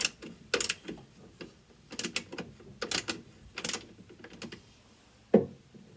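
Ratchet wrench clicking in short bursts, tightening the screws that hold a washing machine's drive motor in its mount.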